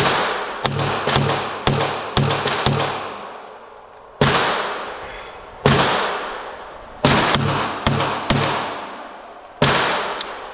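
Gunshots on a busy indoor range: about fifteen loud bangs at uneven spacing, some in quick strings and some a second or more apart, each with a long echo off the range walls.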